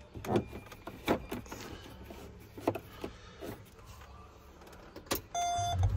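Clicks and knocks of a cable plug being fitted and twisted into the connector of a tractor's GPS display mount, then a short electronic beep near the end.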